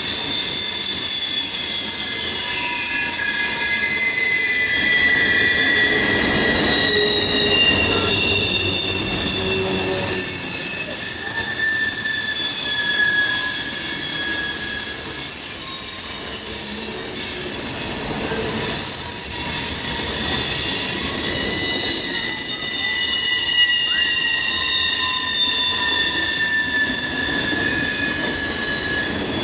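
CSX freight train rolling past, its wheels squealing against the rails in several high, overlapping pitches that drift slightly, over a steady rumble of wheels on track.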